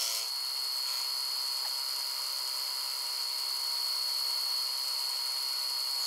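Bridgeport milling machine running a face mill at about 800 RPM, taking a light facing cut of 10 to 15 thousandths across a cast bronze door-handle stem. It makes a steady high whine over a low hum.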